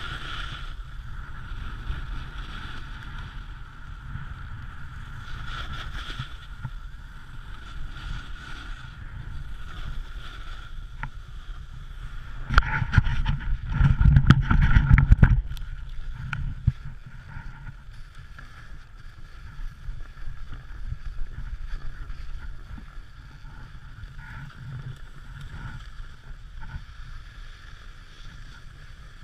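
Snowboard sliding over packed snow with wind rushing past the microphone, a steady scraping hiss. About halfway through it grows louder and rougher for a few seconds as the board carves with the camera held low beside it.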